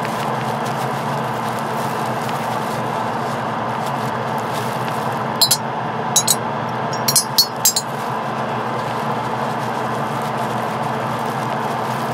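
Small metal airbrush parts clinking about seven times in three quick groups, around the middle, during airbrush cleaning. A steady motor hum runs underneath.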